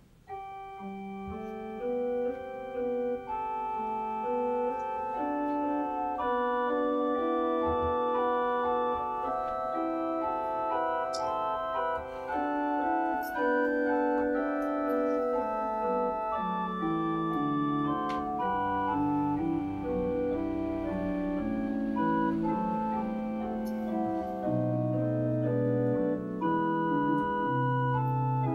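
Organ playing a slow piece of held chords, starting about half a second in, with deep bass notes joining in the later part.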